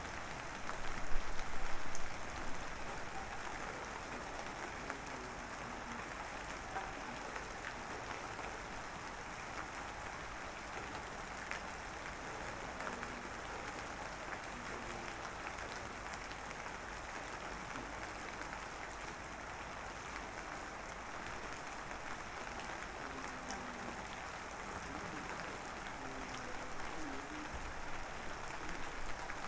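Light drizzle falling: a steady soft hiss of fine rain with scattered drop ticks. A brief louder burst of noise comes about a second in and dies away by about two and a half seconds.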